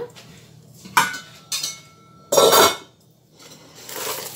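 Stainless steel cooking pot and metal bowl clanking as they are handled on a stone countertop: a knock about a second in that rings briefly, a louder clatter about two and a half seconds in, then a softer scrape near the end.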